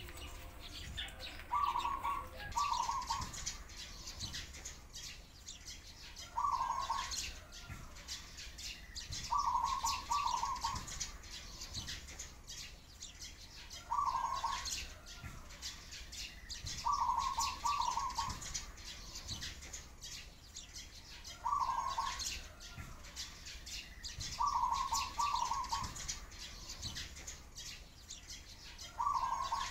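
A dove cooing: a short, pulsed coo phrase repeats every three to four seconds, with sparrows chirping continuously underneath.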